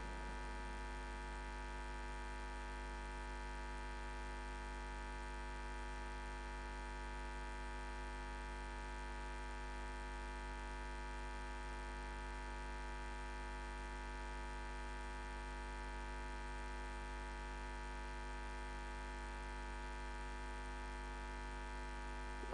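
Faint, steady electrical hum and buzz on the audio line, a stack of unchanging tones with nothing else heard.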